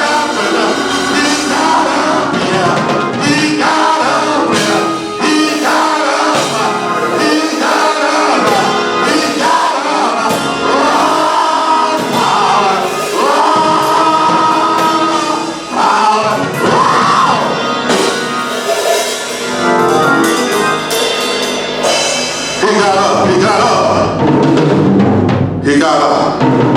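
Gospel music: voices singing with instrumental accompaniment, with long held notes.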